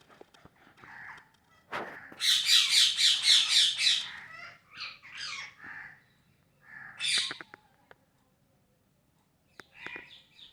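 Parrot calling: a faint call, then about two seconds in a loud, rapid run of about eight calls, followed by a few shorter calls, another loud call about seven seconds in and faint calls near the end.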